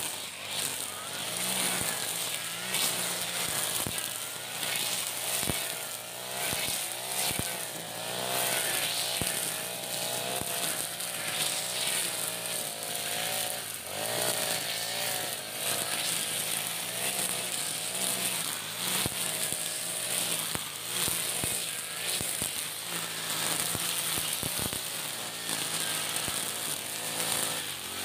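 iPower EH40 four-stroke backpack brush cutter running with a nylon-line trimmer head while cutting weeds; the engine pitch rises and falls as the throttle is worked, with scattered sharp ticks.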